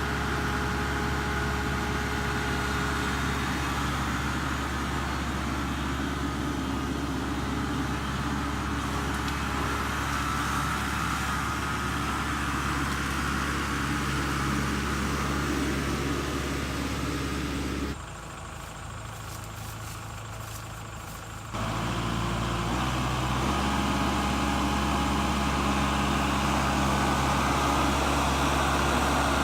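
Kubota MX5800 tractor's four-cylinder diesel engine running steadily. Past the middle it goes quieter for about three seconds, then picks up again.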